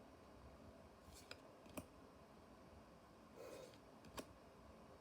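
Faint handling of trading cards and a booster pack: a few light clicks and snaps, with a brief soft rustle a little past the middle.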